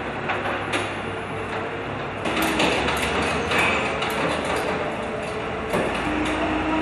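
Forklift truck running with a steady low drone and hum, with metal clanks and rattles several times as it handles a load.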